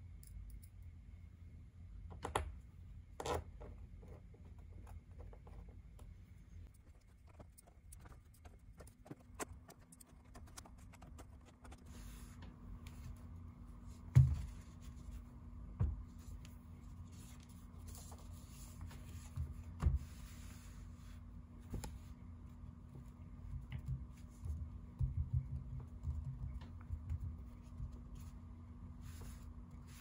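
Womier K87 keyboard case, stripped of its switches, being handled and turned over on a desk mat: scattered light clicks and taps, some rubbing, and one louder knock about fourteen seconds in, with more knocks later.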